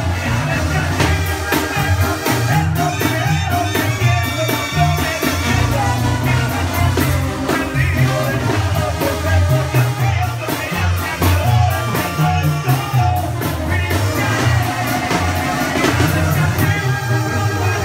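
Live banda sinaloense music played loud over a PA: a male singer over a brass band, with a tuba bass line and a steady drum beat.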